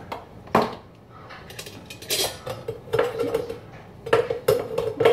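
A utensil scraping and clinking against the plates of a waffle maker, prying a cooked omelette loose. A sharp click about half a second in, then a run of scraping strokes that grows busier in the second half.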